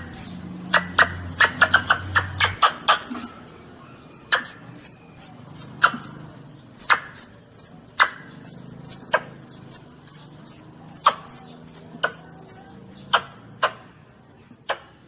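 Lure recording of a baby Asian palm civet (luwak) calling: sharp high squeaks in quick runs over a low hum for the first couple of seconds, then short high falling chirps and squeaks repeated every half second or so.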